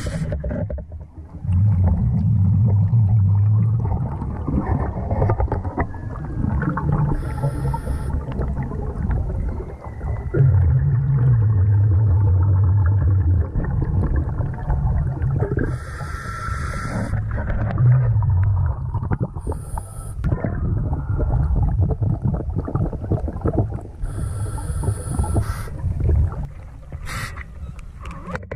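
A diver breathing through a scuba regulator underwater: short hissing inhales alternate with long, low bubbling exhales, about every several seconds.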